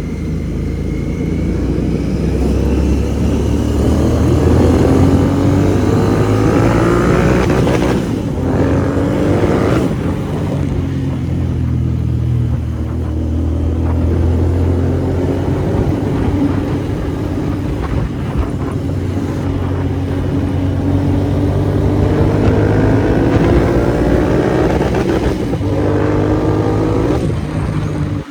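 Royal Enfield Interceptor 650's parallel-twin engine through a Red Rooster Performance aftermarket exhaust, pulling hard with its pitch rising through the revs. It drops back at gear changes about 8 and 10 seconds in, then climbs again and falls off near the end.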